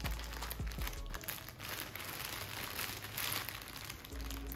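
Packaging around the monitor's accessory cables being handled and unwrapped: continuous crinkling, with a few sharp handling knocks in the first second.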